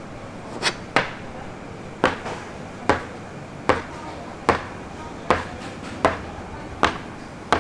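A blade chopping down on a cutting board about ten times in an even rhythm, a sharp knock a little under every second, as youtiao dough is cut into strips. A steady hiss sits underneath.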